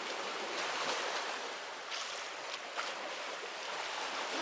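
Sea surf washing steadily against the concrete tetrapods of a breakwater, with a few faint clicks about two seconds in.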